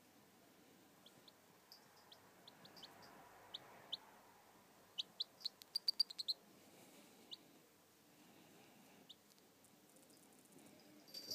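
A 23-day-old Pekin bantam chick peeping: short, high peeps scattered through, with a quick run of peeps about five to six seconds in.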